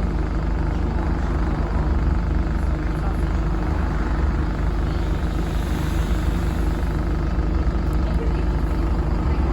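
Dennis Dart SLF single-deck bus with Allison automatic gearbox running steadily, its engine rumble and road noise heard from inside the passenger saloon.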